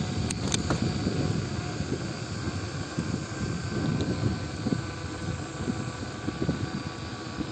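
Wind buffeting the microphone as a bicycle rides along, a steady low rumble, with two sharp clicks about half a second in.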